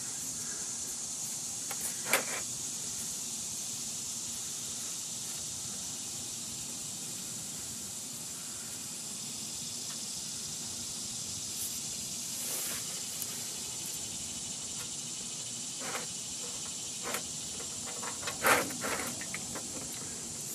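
Cold engine oil draining from the open drain-plug hole of the oil pan in a thin, steady stream, a continuous hissing splash into the catch pan. A few light clicks and knocks from handling come through at intervals, the loudest near the end.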